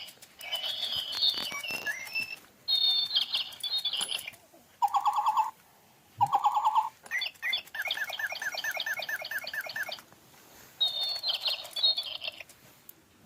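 Toy bird playing electronic chirping birdsong, in a string of short phrases with brief pauses between them; two of the warbling bursts in the middle sound alike.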